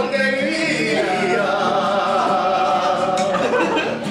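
Live singing to a nylon-string acoustic guitar, a man's voice carrying a melody over the guitar's chords.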